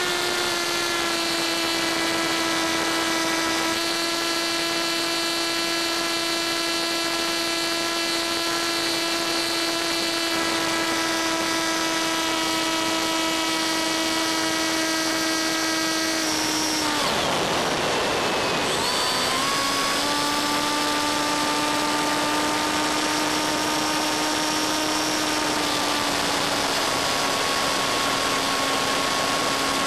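Brushless electric motor and 6x4 pusher propeller of a Funjet model plane in flight, whining at a steady pitch. About 17 seconds in the whine drops away into a rushing noise for about two seconds, then comes back at a slightly lower pitch.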